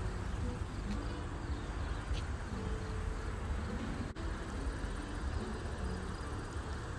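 Outdoor ambience: wind rumbling on the microphone, with a thin, steady, high insect trill above it.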